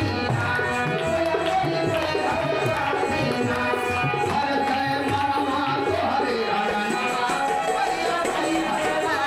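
Instrumental passage of a devotional bhajan: tabla drumming under held melodic notes, with no singing.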